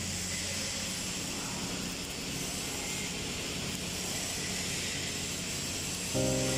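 Steady hiss and crackle of arc welding on a steel pipe, with the noise of the fabrication shop around it. Music comes in near the end.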